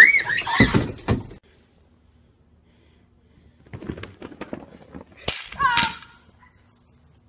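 A wooden porch swing tips over and crashes down, with loud knocks and the girls' short high screams in the first second or so. A few seconds later come scattered clicks, a sharp crack and a short high falling cry.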